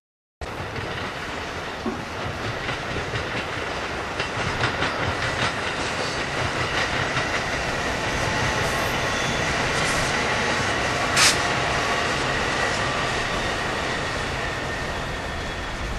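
Metra Electric bilevel electric multiple-unit train passing, its wheels clicking over rail joints under a steady high whine, with one sharp clack about eleven seconds in.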